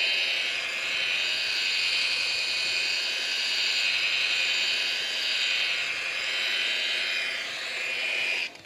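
Electric rotary polisher with a foam pad running at low speed under light pressure, buffing fresh clearcoat to blend the repair into the old finish. A steady whine that stops abruptly near the end.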